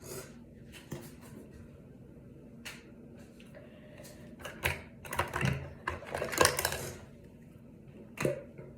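A run of sharp clicks and knocks from small objects being handled in a small room, a few scattered ones and then a busy cluster from about four and a half to seven seconds in, with one last knock near the end.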